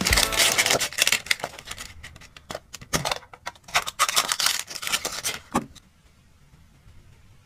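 Plastic surprise egg pulled apart by hand and its small clear plastic capsule opened: an irregular run of clicks, snaps and scrapes of handled plastic, stopping a little before six seconds in. The tail end of a song is heard at the very start.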